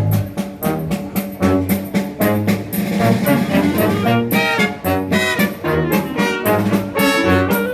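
Concert band playing, with brass (trumpets and trombones) leading in short, rhythmic notes over steady percussion strokes.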